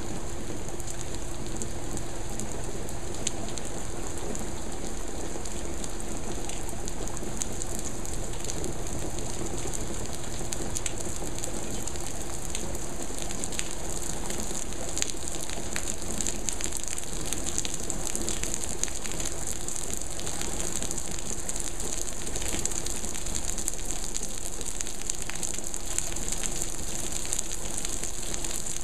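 Steady monsoon rain falling on a backyard pool and patio, with the sharp ticks of individual drops all through.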